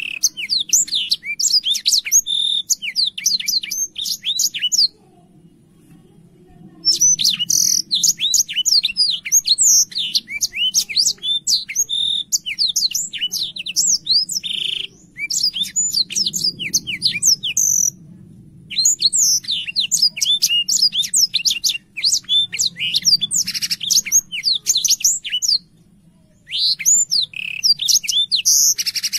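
Blackthroat (black-throated canary) singing in long, fast runs of high chirping and twittering notes, broken by a few short pauses of a second or two.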